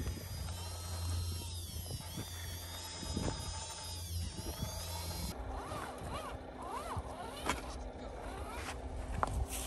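Electric motors and gear drives of radio-controlled scale crawlers whining as they climb, the pitch rising and falling with the throttle. The sound changes abruptly a little past halfway through.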